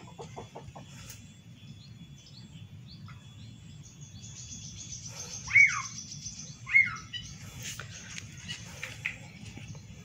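Small caged sunbird (kolibri wiceh) calling: scattered thin chirps, a high rapid trill around the middle, and two loud sharp chirps about a second apart.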